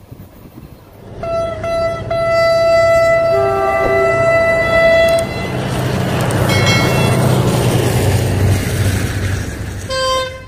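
Diesel locomotive horn: a couple of short blasts about a second in, then one long blast of about three seconds, followed by a steady low rumbling of a train running.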